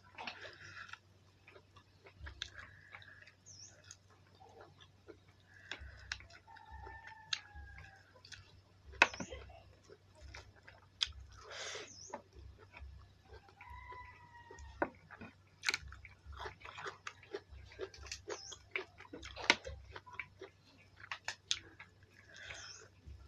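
Close-up eating sounds from chewing chicken curry and cucumber, with many short sharp clicks and smacks. Chickens cluck in the background, and small high chirps come now and then.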